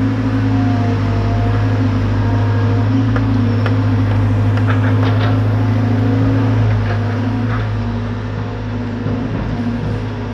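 Excavator's diesel engine running steadily with a deep hum, easing slightly in level about seven seconds in.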